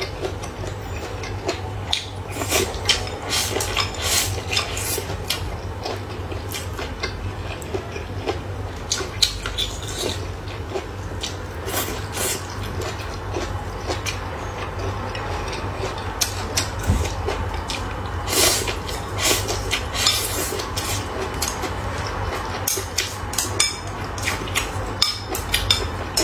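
Close-up eating sounds: chopsticks and bowls clinking and tapping irregularly, with chewing, over a steady low hum.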